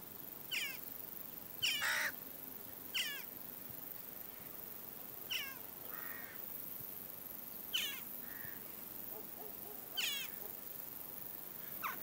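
Western jackdaws calling: about seven short, sharp calls, each sweeping downward in pitch, spaced a second or more apart, with two coming close together near the two-second mark.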